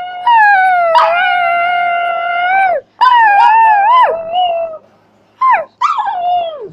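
Small dog howling in reply to her owner's "I love you": a long steady howl, then a wavering howl that rises and falls three times, then two shorter howls that drop in pitch near the end.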